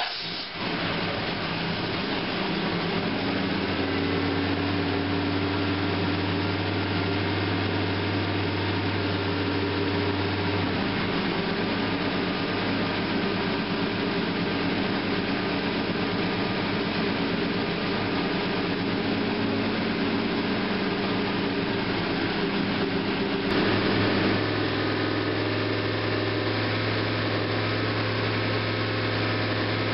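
Freshly rebuilt 402 cubic-inch Chevrolet big-block V8 running steadily on an engine dyno during break-in. Its note changes about eleven seconds in and again about 24 seconds in.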